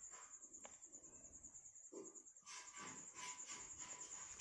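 Near silence: a faint, steady, high-pitched insect trill, like crickets. From about halfway there is a faint rustling and scraping as the dry husk is peeled off a boiled palmyra sprout by hand.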